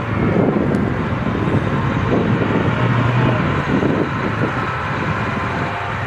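M2A3 Bradley Fighting Vehicle driving over rough ground, its diesel engine running with a steady low hum under a rough, rattling rumble from the moving tracked vehicle.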